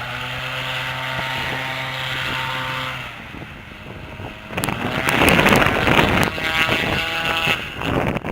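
Airboat engine and propeller running at a steady pitch, then dropping away about three seconds in. From about four and a half seconds in, loud gusts of wind buffet the microphone over the engine.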